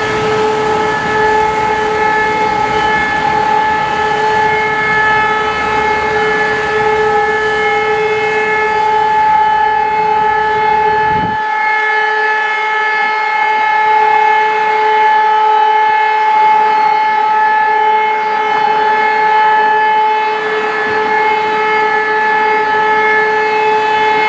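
Civil defence warning siren sounding one steady tone that holds its pitch without rising or falling: the continuous all-clear (Entwarnung) signal of a siren test.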